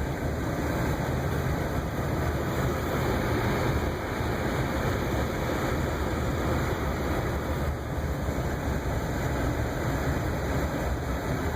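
Steady noise of a car heard from inside the cabin: the engine running with a low hum under an even hiss, unchanging throughout.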